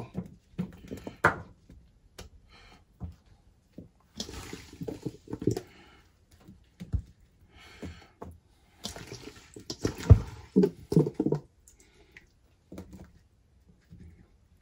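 Juicy cinnamon-sugar-coated apple chunks being scooped by hand from a steel bowl and dropped onto cake batter in a metal tube pan: wet squishing and plopping in irregular spells, with a dull thump about seven seconds in and a louder one about ten seconds in.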